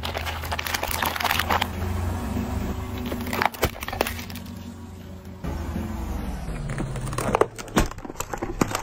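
A car tyre rolling slowly over plastic cups and containers, crushing them with crackling and sharp cracks as the plastic splits, the loudest cracks about three and a half seconds in and again near the end. The car's engine hums low and steady underneath.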